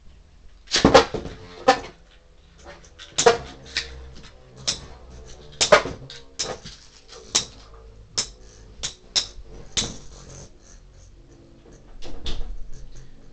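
Two Beyblade spinning tops clashing and skidding in a plastic tub: a run of sharp, irregular clacks, the loudest about a second in and again near six seconds.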